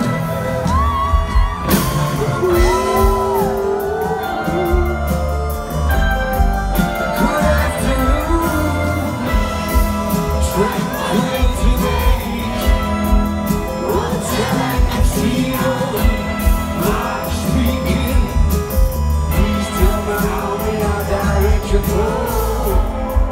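Rock band playing live through a concert PA: a lead singer over heavy bass, drums and keyboards, recorded from within the audience.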